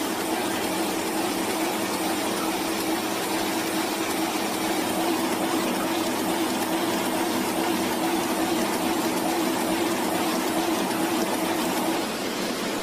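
Banknote production machinery running: a steady mechanical whir with a continuous hum that stops near the end, where the sound changes to a slightly quieter, plainer rush.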